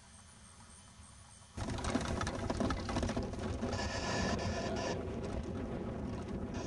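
Quiet at first, then about one and a half seconds in a sudden switch to loud, rough rumbling and crackling noise: wind buffeting and handling on a camcorder's built-in microphone.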